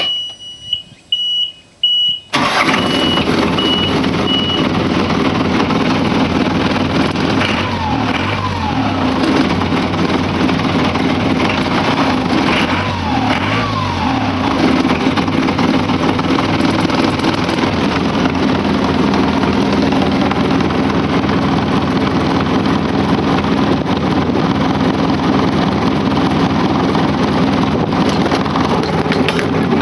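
Isuzu UM4JB1 marine four-cylinder diesel being started: a high beeping tone and a few short loud pulses during a brief crank, then the engine catches about two seconds in and runs steadily.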